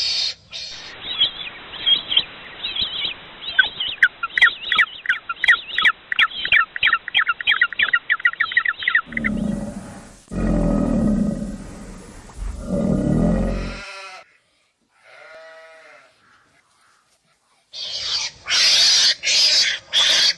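Edited run of animal calls from different clips: a fast series of high chirping calls for about eight seconds, then two long low calls, a faint short call, and loud repeated calls near the end.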